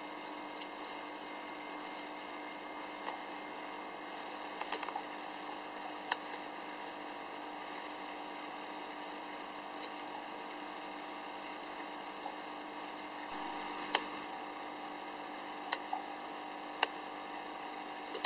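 Aquarium filter running: a steady motor hum with the wash of water from its outflow, broken by a few brief sharp clicks.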